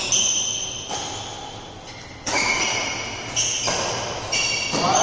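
Badminton rackets striking a shuttlecock in a doubles rally: about five sharp pings roughly a second apart, each ringing on in the large hall.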